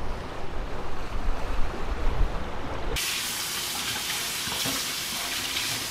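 Wind buffeting the microphone over surf on a rock jetty. About three seconds in this gives way abruptly to a kitchen tap running steadily into a stainless steel sink as seaweed is rinsed under it.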